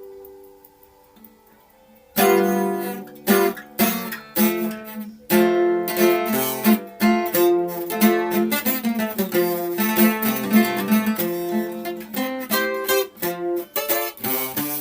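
Acoustic guitar being played, strummed chords mixed with plucked notes. It starts about two seconds in, after a ringing note has died away.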